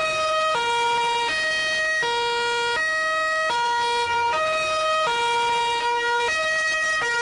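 Two-tone emergency-vehicle siren alternating evenly between a low and a higher note, each held about three quarters of a second, loud and steady in pitch.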